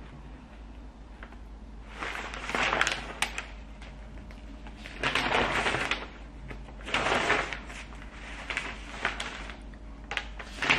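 Newspaper pages rustling and crackling as they are lifted and turned, in several separate bursts of about a second each.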